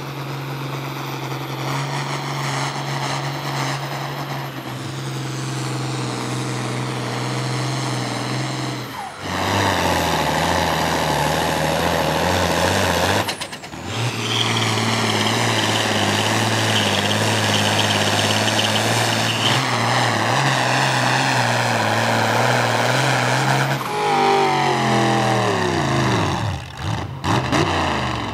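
Pulling tractor and truck engines running hard under load while dragging a weight sled, in several clips cut together. Near the end an engine's pitch sweeps sharply down and back up as it revs.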